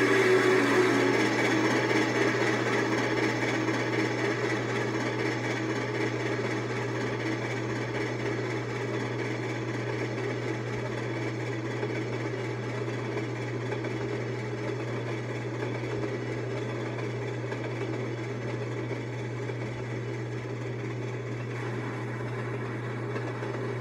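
Passenger train cars rolling past on the rails behind a receding steam locomotive: a steady rumble and hiss that slowly fades.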